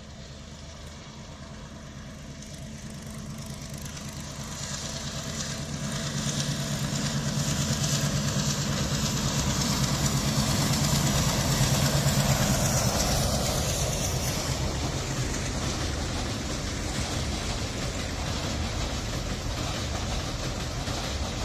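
Diesel locomotive hauling a passenger train across a steel girder bridge. The engine's low drone grows steadily louder as it approaches and is loudest about halfway through, as the locomotive passes. It then gives way to a steadier rumble of the coaches running over the bridge.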